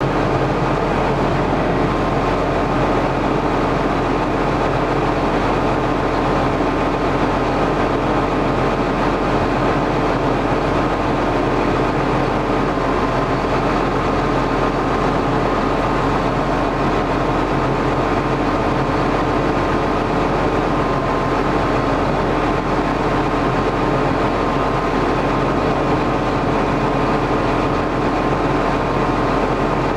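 John Deere 7920 tractor's six-cylinder diesel engine running steadily at a constant speed, a continuous drone that never changes.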